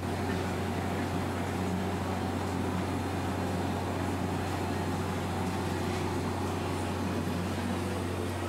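Steady mechanical hum under an even rushing noise.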